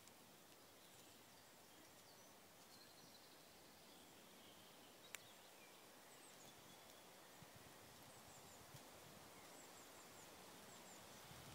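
Near silence: faint woodland ambience with a few distant, high bird chirps, and a single sharp click about five seconds in.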